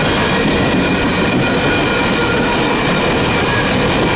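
Empty steel coal gondolas of a long freight train rolling past: a steady, loud rumble of steel wheels on rail, with a faint high whine running through it.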